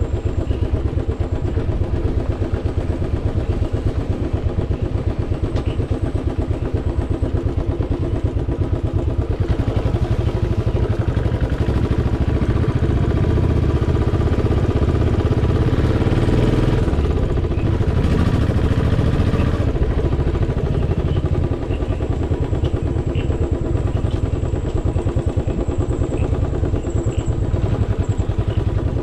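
Royal Enfield motorcycle engine running as the bike is ridden at low speed, a steady pulsing beat that grows louder and rougher for a stretch in the middle before settling again.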